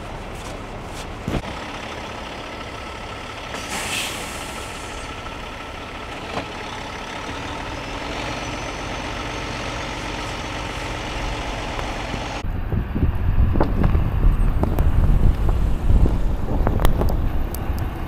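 Heavy-duty tow truck's diesel engine running steadily while it pulls a snow-buried semi out on its winch cable, with a short hiss of air about four seconds in. About twelve seconds in it gives way to gusty wind buffeting the microphone.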